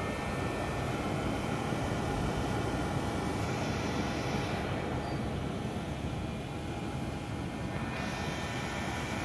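Homemade bucket forge running at full heat, a steady rushing roar of fire and air with faint steady tones in it, while it melts a crucible of aluminum.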